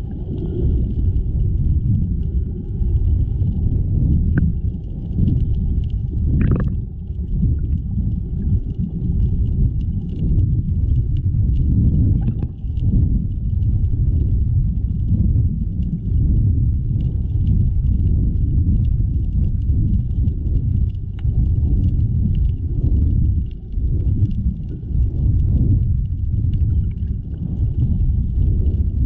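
Muffled low rumble of water moving around a GoPro HERO7 while snorkeling, with faint scattered clicks and crackles over it.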